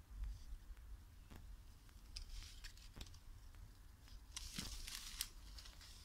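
Faint rustling of vine leaves and handling noise near the phone's microphone: scattered light clicks and brief rustles over a low rumble, with the rustles loudest near the end.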